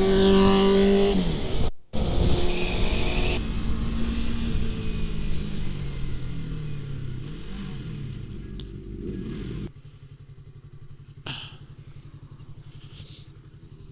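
Sport motorcycle engine under way with wind rush, its pitch falling over several seconds as the bike slows. About ten seconds in the sound drops abruptly to a quieter, steady low-revving engine.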